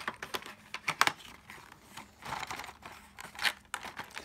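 Cardboard window box and its clear plastic packaging being handled and opened: scattered rustling and scraping with a few sharp clicks.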